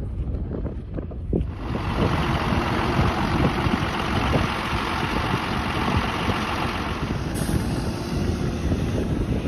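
Truck engine running steadily, with wind blowing on the microphone and thickening into a dense rush about a second and a half in.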